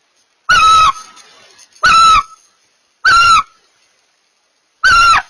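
Barn owl giving four short, pitched calls, each about half a second long, bending up briefly and then dropping away at the end.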